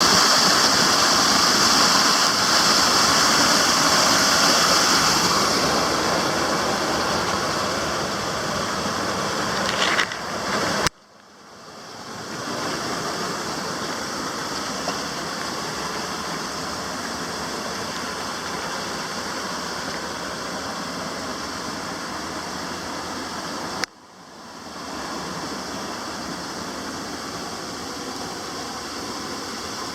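Waterfall rushing as a steady, loud wash of falling water. It cuts out abruptly twice, about eleven seconds in and again near twenty-four seconds, and fades back up each time.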